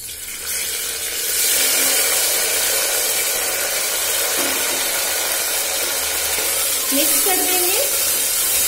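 Finely chopped tomatoes sizzling loudly in hot oil in a pressure cooker, the sizzle swelling within the first second as they hit the oil.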